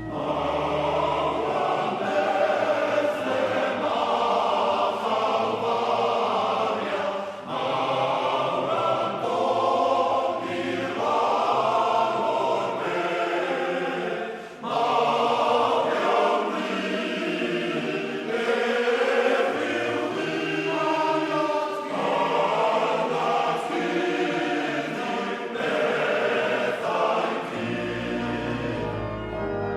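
Recorded music of a group of voices singing in harmony, with brief breaks about 7 and 14 seconds in. Near the end a steady held chord comes in.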